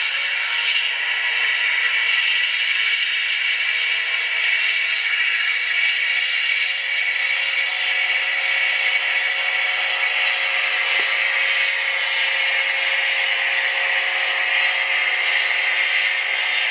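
Sound-decoder recording of a GE AC4400CW diesel locomotive's prime mover, running steadily, played through a small 28 mm speaker in an HO scale model. It sounds thin, with no bass.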